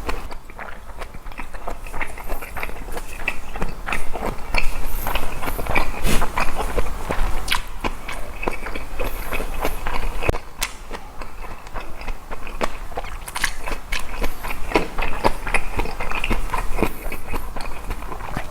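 Close-miked chewing of boiled pork bossam and fresh napa cabbage kimchi: a dense, irregular run of crisp crunches and mouth clicks.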